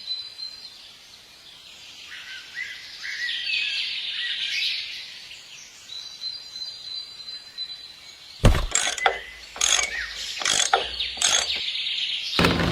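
Birds chirping in short high calls over a thin steady high tone, then a quick run of sharp knocks in the second half, with a louder dense sound starting near the end.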